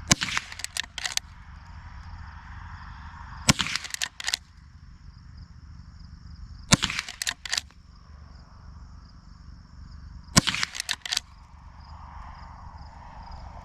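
Henry Golden Boy lever-action rifle firing .22 Long Rifle rounds: four shots, about three and a half seconds apart. Each shot is followed by a quick run of lighter clicks.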